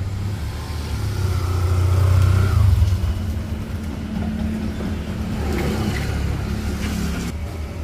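A motor vehicle's engine running, loudest for the first three seconds, then a motorcycle engine running at low speed as the bike pulls in and stops.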